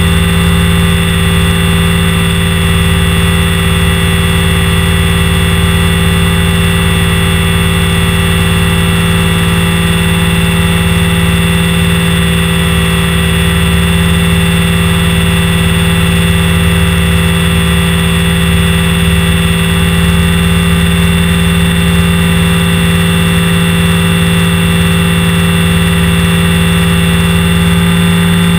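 Align T-Rex 550 electric RC helicopter in flight, heard from its own onboard camera. Its motor, gears and main rotor give a loud, steady whine over a low hum, at a nearly unchanging pitch.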